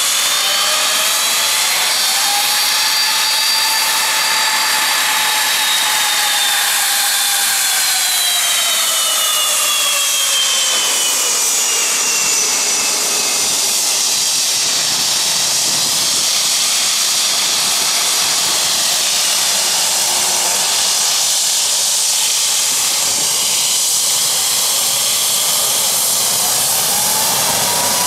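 Boeing 757 jet engines at taxi power as the airliner rolls past: a high engine whine that glides up and then down over the first ten seconds or so, over a steady hiss. Near the end the whine starts to rise again.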